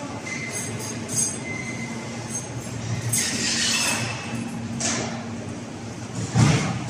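Assembly-line machinery in a battery pack factory running with a steady low hum. A few short high tones sound in the first couple of seconds, and later come several sudden bursts of hiss and clatter, the loudest near the end.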